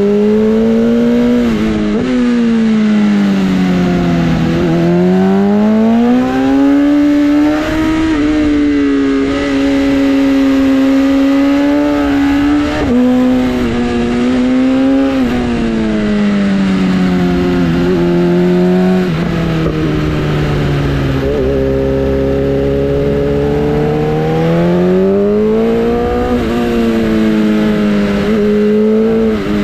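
Sportbike engine running under way, its pitch climbing and falling smoothly as it speeds up and slows. It sinks low and holds there for a few seconds past the middle, then climbs again near the end.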